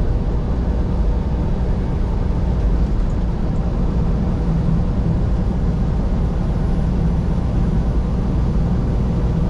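Semi truck running with a steady low rumble of engine and road noise.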